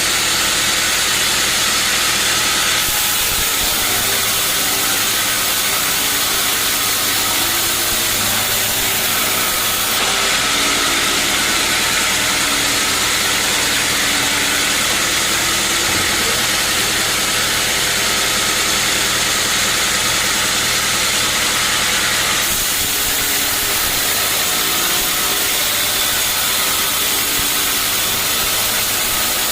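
Sawmill running steadily: an engine drone under a loud hiss, the hiss changing abruptly a few times.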